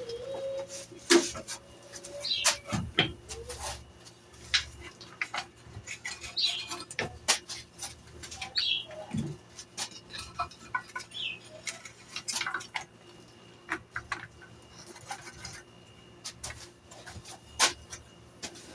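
Scattered light clicks and knocks at irregular intervals, with a few short bird chirps and a faint steady hum.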